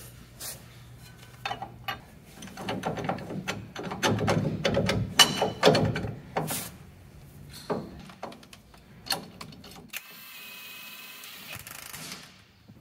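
Metal parts and hand tools clinking and clicking in quick runs as U-bolt brackets are fitted to a leaf-spring rear axle. Near the end comes a steady hum lasting about a second and a half.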